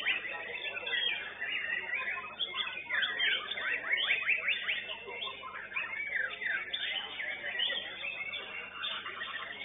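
White-rumped shamas (murai batu) singing nonstop, a dense run of fast whistled phrases and quick downward-sweeping notes, several birds overlapping.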